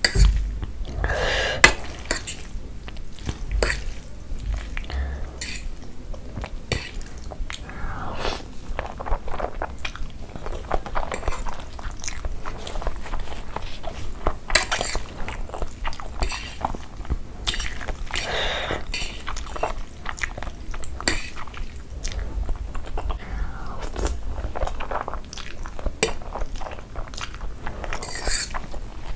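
Close-miked chewing of a mouthful of black bean noodles, with a metal fork clinking and scraping on the plate as more noodles are picked up. Irregular wet mouth sounds and short clicks run throughout.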